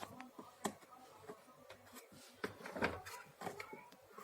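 A handful of sharp clicks and knocks from the plastic parts of a vacuum cleaner being handled as it is taken apart to reach the motor, the loudest about three seconds in.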